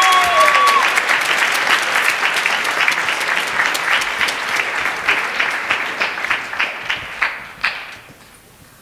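Audience applause: dense clapping that tapers off and dies away near the end, with a brief high whoop from the crowd at the start.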